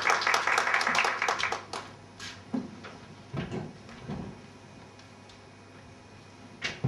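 Applause dying away over the first second and a half, followed by a few separate knocks and thumps as people get up from their chairs and push them back.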